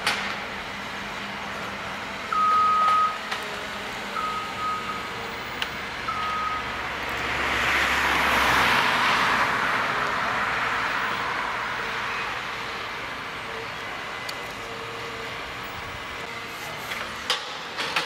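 John Deere 1470E forestry harvester working, its engine running steadily, with three short warning beeps about two seconds apart near the start. About seven seconds in, a broad rushing noise swells up, is loudest about eight and a half seconds in, and fades away over the next few seconds.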